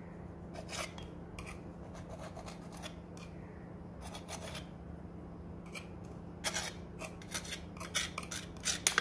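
Knife cutting through a slice of sandwich bread around the rim of a ceramic bowl: short crisp strokes, scattered at first and coming thicker and louder about two-thirds of the way in.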